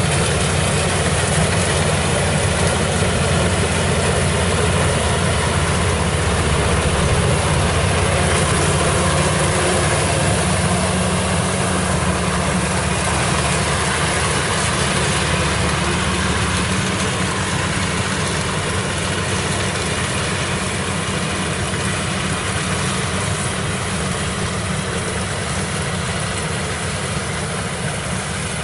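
Kubota rice combine harvester running steadily as it cuts and threshes rice: a continuous engine drone with the even rushing noise of the machinery, growing slightly fainter over the last part.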